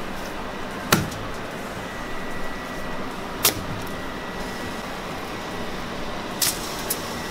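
Flour tortillas being handled and laid onto aluminium foil: three short, sharp clicks and crinkles about a second in, at three and a half seconds, and near the end, over a steady fan-like room hum.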